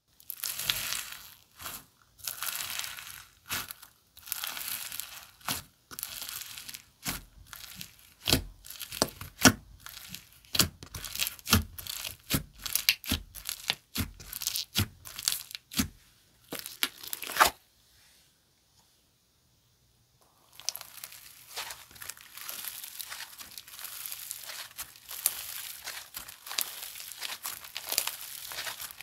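Micro snow slime being worked by hand, crackling and popping sharply. The pops come separately at first, then stop for a few seconds about two-thirds through. After that comes a dense, steady crackle.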